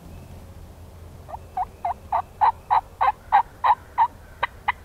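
A series of about a dozen hen-turkey yelps, about three a second, starting about a second in.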